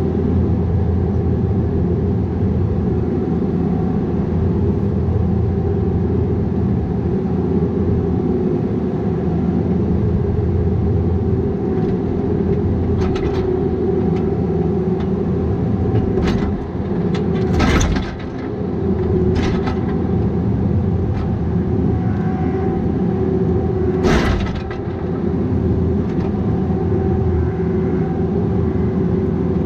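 Bobcat 337G mini excavator's diesel engine running steadily under work, with scattered knocks and clanks of the machine at work. Two loud knocks come in the second half, and a cluster of sharper clicks near the end.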